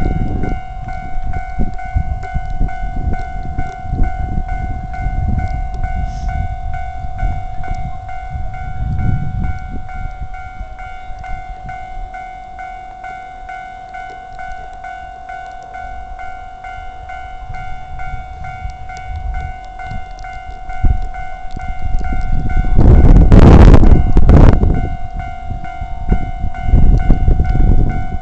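Japanese railway level-crossing warning bell ringing without pause, with trains rumbling past in surges. About 23 seconds in comes a loud burst of noise, the loudest moment.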